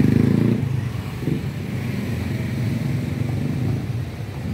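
Motor scooter engines passing close by, loudest in about the first half second. After that, a steadier engine drone from slower traffic of motorcycles and a car.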